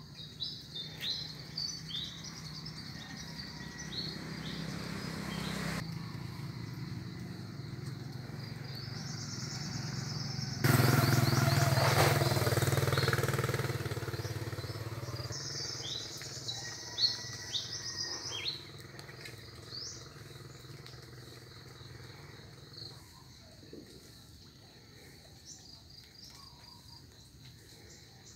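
Small birds chirping and tweeting in short repeated calls. A motor engine passes: it is heard building a few seconds in, cuts in loudly about eleven seconds in, then fades away over the next several seconds.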